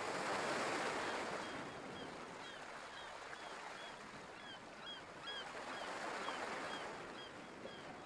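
Sea surf washing onto a rocky shore as a steady rush, swelling in at the start and again about two thirds through, with short high bird chirps repeating over it.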